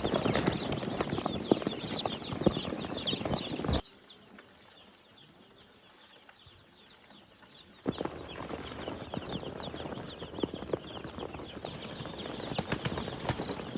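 A crowd of young chicks peeping, short high falling cheeps over many small taps and scuffles. About four seconds in it drops away to a faint background for some four seconds, then the peeping and tapping return.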